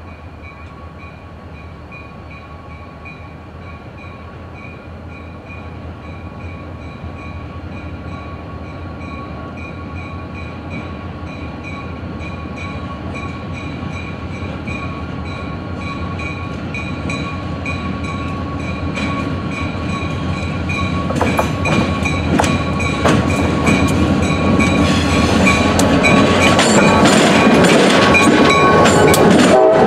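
Diesel-hauled freight train approaching and growing steadily louder, a steady high tone over the locomotives' low rumble. Rapid wheel clicks and clatter come in during the last third as the train draws close.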